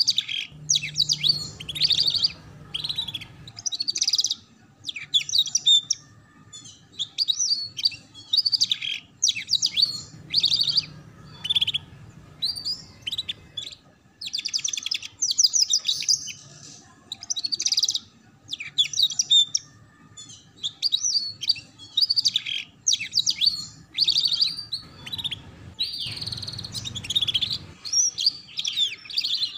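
Young canary singing in quick bursts of high chirps and rapid trills, with short pauses between phrases: the fast twittering 'ngeriwik' song used to train juvenile canaries.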